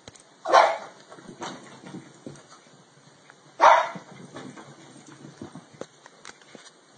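An animal giving two loud, short calls about three seconds apart, with fainter short sounds between and after.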